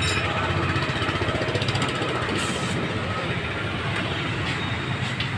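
A machine running steadily with a low rumble, with a short hiss about halfway through.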